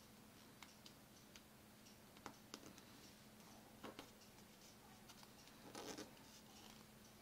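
Faint crinkling and scraping of origami paper being folded and creased by hand, a few short ticks with a longer rustle about six seconds in, over a faint steady hum.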